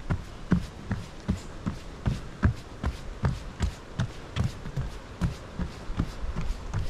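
Running footsteps on a wooden boardwalk: a steady rhythm of about two and a half footfalls a second, each a short thud.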